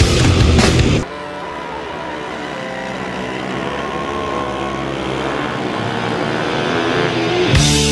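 Honda Grom's 125 cc single-cylinder four-stroke engine running as the minibike is ridden, slowly getting louder. Heavy metal music plays for about the first second and comes back in near the end.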